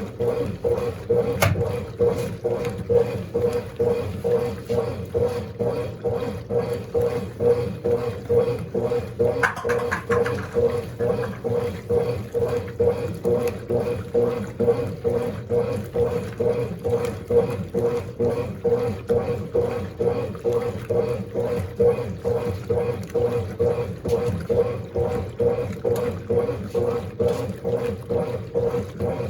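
Mondial Baby BLK-20 compact washing machine mid-wash: a steady motor drone with water swishing in a regular pulsing rhythm as the agitator churns a load of dark clothes. There is a brief click near the start.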